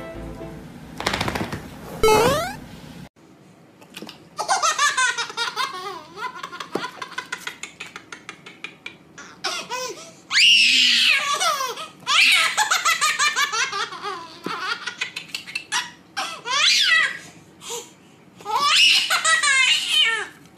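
A short musical sting, then a baby laughing hard in repeated fits of giggles and belly laughs, the loudest bursts in the second half.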